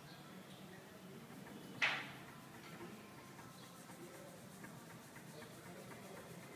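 Band saw running through a cut, a faint steady low hum, its repaired feed valve holding the feed rate even. One sharp click sounds about two seconds in.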